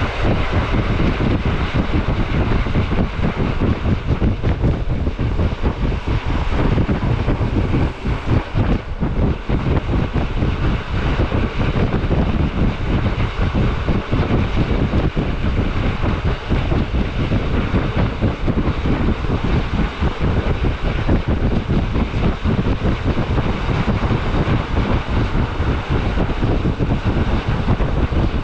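Rhaetian Railway metre-gauge train running at speed: a steady rushing rumble, with wind buffeting the microphone.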